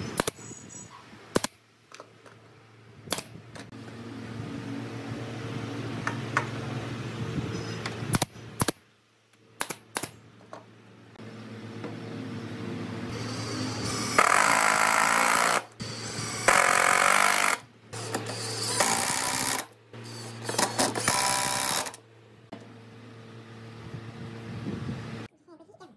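Small handheld electric power tool running in several bursts a second or two long, over a steady motor hum, with scattered sharp clicks and knocks of wood and metal parts in between.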